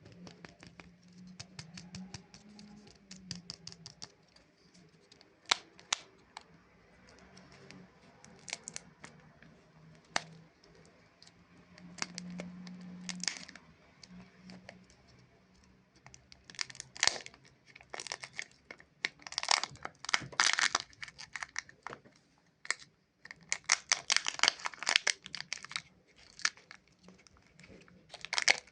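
Plastic wrapper of a Chupa Chups lollipop crinkling and tearing, in scattered sharp crackles that come in denser, louder clusters in the second half.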